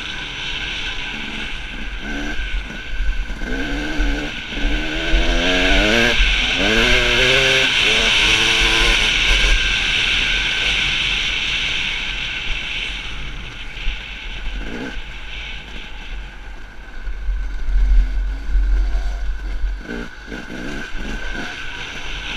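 Dirt bike engine running under way, its revs rising and falling repeatedly in the first half as the throttle works, with gusty wind rumble on the microphone.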